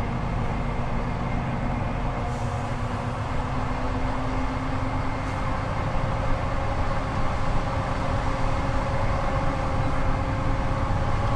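DAF XF truck's diesel engine running while driving, with road noise: a steady drone carrying a few held tones whose pitch creeps slightly upward.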